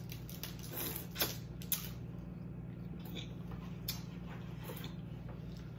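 Close eating sounds: wet mouth smacks and a few sharp clicks while chewing seafood, over a steady low hum.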